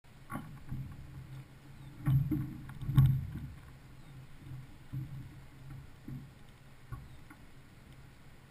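Rowing shell (men's pair) under way: a steady low rush of water along the hull, with several sharp knocks and clunks from the oars and riggers, the loudest about two and three seconds in.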